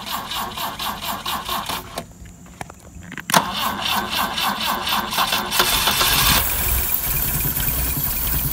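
BMW 2002tii's mechanically fuel-injected four-cylinder engine cranking on the starter at about five strokes a second. The cranking stops for about a second, then resumes with a click. A couple of seconds into the second try the long-dead engine catches and settles into steady running, with its coil, ignition and electric fuel pump fed by jumper wires straight from the battery.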